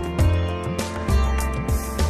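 Background music with a beat, deep bass notes and held musical notes.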